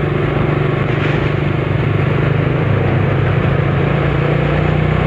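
A vehicle's engine runs steadily at low speed along with road noise, heard from on board the moving vehicle. It is a loud, even drone with no changes.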